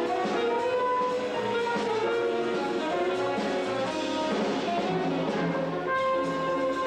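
Small jazz band playing live: saxophone and trumpet sounding the melody together over electric keyboard and drums, with many held notes.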